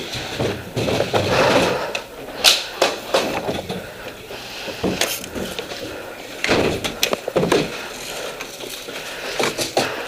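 Irregular knocks, clicks and rustling, the clatter of a player's gear and movement, with one sharp click about two and a half seconds in.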